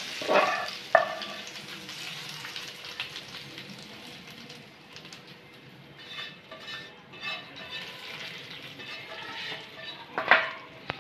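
Hot ghee tempering (tadka) of browned garlic and dried red chillies sizzling as a spoon scrapes it out of a nonstick frying pan onto spinach curry. A sharp knock sounds near the start, and a loud clank of the spoon or pan rings out near the end.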